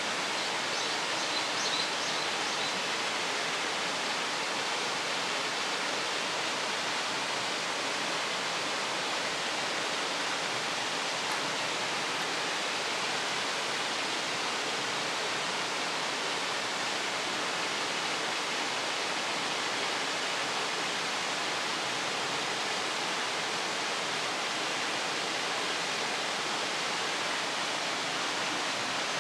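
Steady rushing of water from a gorge stream, an even, unbroken noise.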